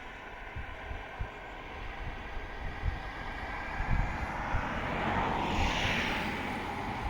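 A passing vehicle's rushing noise swells to a peak about five to six seconds in, then eases off, with wind buffeting the microphone underneath.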